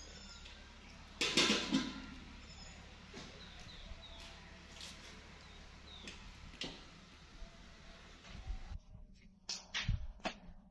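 A person sipping hot tea from a mug, one loud slurp about a second and a half in, then faint scattered clicks. Near the end come a few sharp taps.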